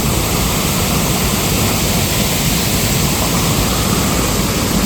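Loud, steady rush of water from a jungle river and waterfall, swollen after a night of heavy rain.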